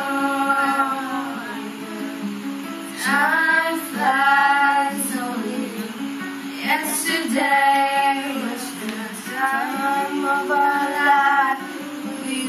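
Acoustic guitar played while girls sing along, the voices coming in phrases with short breaks between lines.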